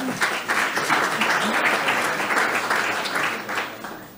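Audience applauding, many hands clapping together; the applause comes up quickly and dies away near the end.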